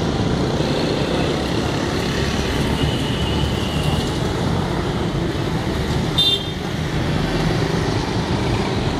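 Steady street traffic noise from passing motorcycles, auto-rickshaws and cars, with a brief high-pitched vehicle horn toot about six seconds in.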